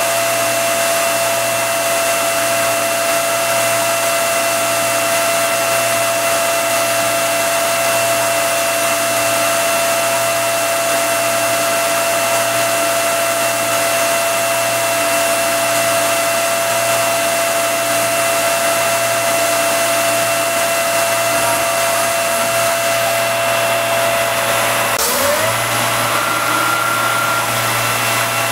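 CNC mill spindle running steadily while a small end mill cuts panels into a 1911 pistol slide: a steady whine over a constant hiss. About 25 s in there is a brief break and dip in pitch, after which it carries on unchanged.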